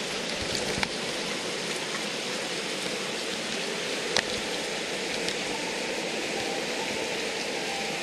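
Hot-spring water running steadily into an outdoor bath, a continuous rushing splash of the free-flowing source, with a couple of small clicks.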